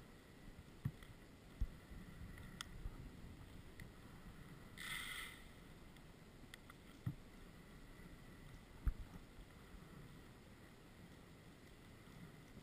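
Muffled underwater ambience picked up by a diver's camera: a low steady rumble with a few sharp knocks and a brief hiss about five seconds in.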